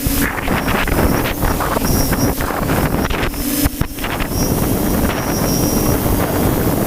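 Strong gusty wind buffeting the microphone, with a faint whine that comes and goes.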